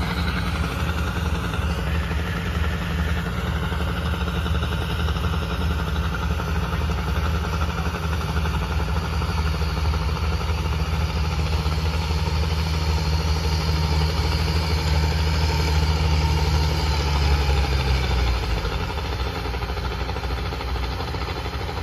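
Engines of rice-harvesting machines, a Yanmar combine harvester and a machine hauling rice sacks, running steadily with a low engine note. The sound grows louder toward the middle and eases off about three-quarters through.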